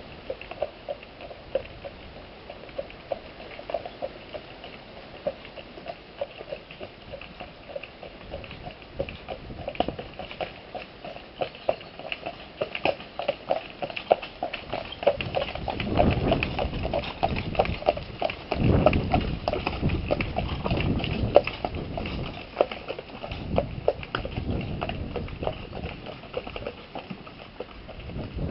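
Hooves of a heavy draught horse clip-clopping on a gravel road as it pulls a carriage, growing louder as it approaches and passes. Low rumbling and crunching of the carriage wheels on gravel swells in the middle as it goes by.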